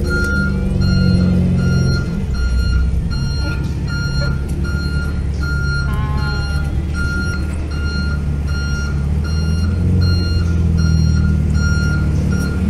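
Vehicle reversing alarm beeping steadily, about two beeps a second, over the low rumble of an idling truck engine.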